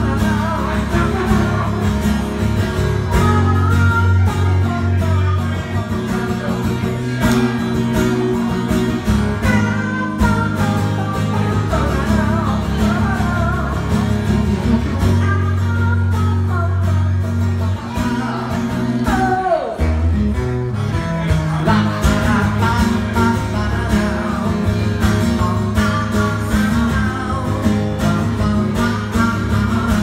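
Twelve-string acoustic guitar played live in an instrumental passage, steady chords over a held bass. Just before the two-thirds mark one note slides steeply down in pitch.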